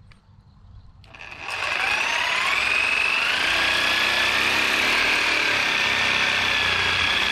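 Cordless reciprocating saw cutting through a PVC pipe. The motor starts about a second in with a rising whine, then runs steadily through the cut.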